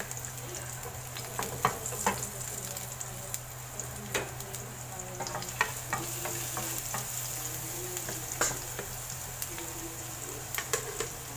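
Minced garlic sizzling in hot oil in a nonstick frying pan, a steady hiss with occasional sharp clicks, while a wooden spatula stirs it. A steady low hum runs underneath.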